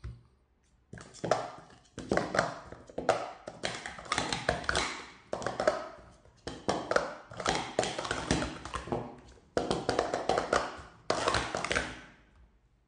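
Plastic sport stacking cups (Speed Stacks) clattering and clacking as they are stacked up and down at speed through a Cycle sequence: rapid runs of clicks in bursts with short breaks between stacks. There is a light tap at the very start and the clatter stops just before the end.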